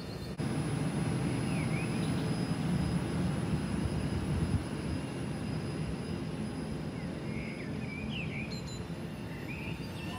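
Northern Class 331 electric multiple unit running out of the platform: a steady low rumble of wheels and traction gear that eases down about halfway through. Birds chirp over it now and then.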